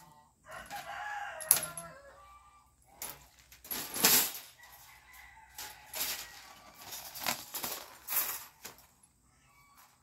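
A cardboard box being cut open and its packing handled, heard as several sharp rustling, tearing bursts. It is preceded by a short pitched animal call in the first two seconds.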